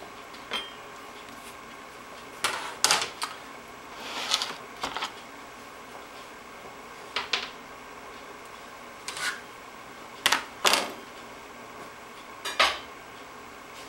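Kitchenware being handled: dishes and utensils knocking and clinking against each other and the counter in short, scattered clatters, some in quick pairs, over a faint steady hum.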